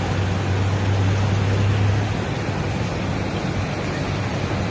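Vehicle driving through floodwater: a steady rush of water, with a low hum that drops away about two seconds in.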